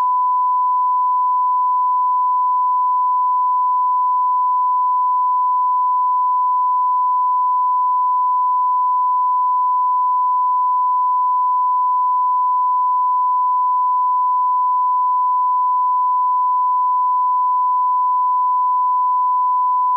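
Steady 1 kHz reference test tone, a pure continuous beep played with SMPTE colour bars for line-up.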